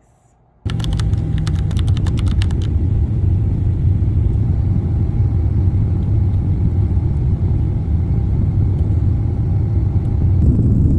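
A loud, steady low rumble starts suddenly about a second in, with a quick run of clicks over its first two seconds.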